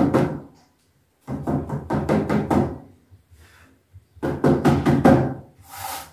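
A spoon stirring cake batter in a metal ring pan, clattering and scraping against the pan in two bouts of about a second and a half each, with a short hiss near the end. The stirring is meant to break up air bubbles in the batter.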